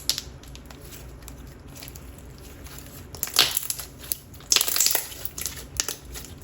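Gummy clear slime being pressed and stretched by hand, giving bubble-pop crackles and clicks, loudest in two clusters a little past the middle.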